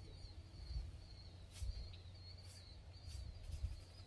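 Outdoor ambience: birds chirping on a thin, wavering high note, over a low rumble, with a few brief rustles or clicks from handling.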